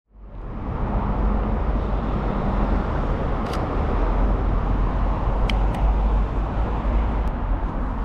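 Steady rumble of road traffic, heavy in the low end, fading in at the start, with a few short sharp clicks over it.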